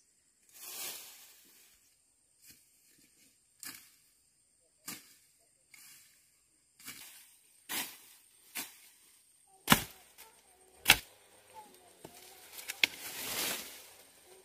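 A series of short, sharp knocks and scraping strokes at an irregular pace of roughly one a second, two of them louder about ten and eleven seconds in, and a longer scraping hiss near the end: manual work striking and scraping at something.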